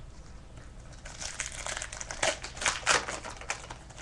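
Foil wrapper of a hockey card pack crinkling as it is torn open and handled: a run of crackly rustles starting about a second in.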